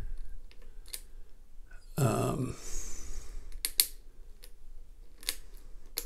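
A desk lock being picked with a lock pick and tension wrench: scattered light clicks and scrapes as the pick works the pins. A short vocal sound about two seconds in.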